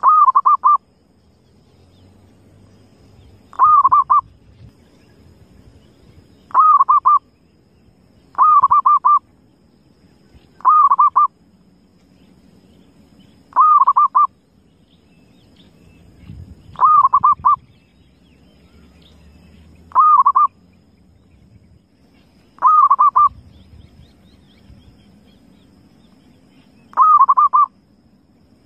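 Zebra dove (perkutut) cooing: about ten short, trilled coo phrases, each under a second, repeated every two to four seconds.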